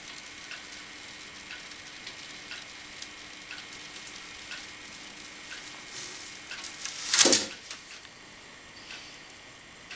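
Home-made hot wire foam cutter drawing its heated wire through a styrofoam block: a faint steady hum with a soft tick about once a second. About seven seconds in comes one short, loud, rushing noise.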